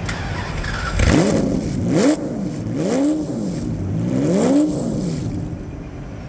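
Ferrari P4 race car's engine running at idle and blipped three times, the revs rising sharply and falling back each time, as the car creeps forward into an enclosed trailer. The blips come about a second in, about three seconds in and about four and a half seconds in, then it settles back toward idle.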